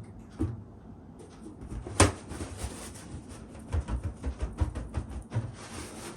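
Balloons being handled, with light knocks and rustling and one sharp snap about two seconds in, then a quick run of small knocks.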